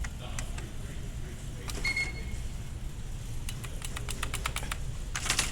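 IBM Wheelwriter 10 Series 2 electronic typewriter being operated: scattered key clicks, a short high beep about two seconds in, and a quick run of clacks near the end, over a low steady hum.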